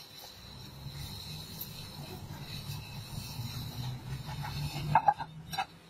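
Quiet handling sounds as chopped herbs are sprinkled by hand over bowls, under a low steady hum. A few sharp clicks come about five seconds in.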